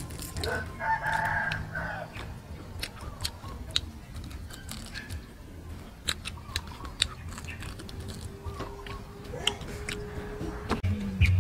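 A rooster crows once, about half a second in, lasting a second or so. Through the rest, sharp crunching clicks of crispy fried rat meat being torn apart by hand and chewed.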